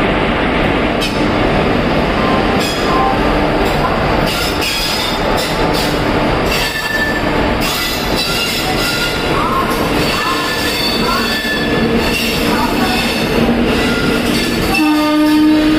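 A WAP-1 electric locomotive and its passenger coaches moving off past the platform: a steady rumble of wheels and running gear, with high wheel squeals that slide in pitch and scattered clicks from the wheels on the track. A short, strong pitched tone sounds near the end.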